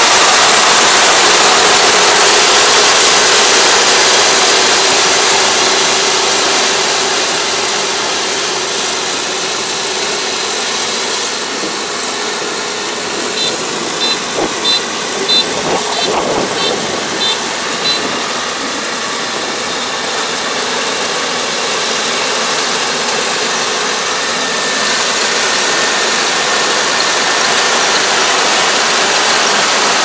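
Kubota ER470 rice combine harvester running at work, its engine and harvesting machinery a steady loud din that fades as it moves away and grows again near the end. Midway comes a run of short high beeps, about two a second, lasting a few seconds.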